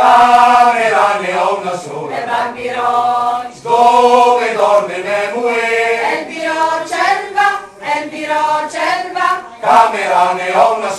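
Mixed choir of men's and women's voices singing together, unaccompanied. The singing comes in suddenly right at the start and carries on with short breaths between phrases.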